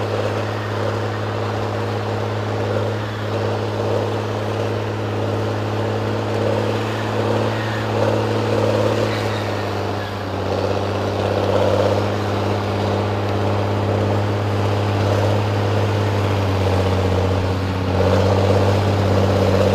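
Engine of a heavy logging machine running steadily, a constant low hum with a wavering mid tone, rising in loudness a little about halfway and again near the end.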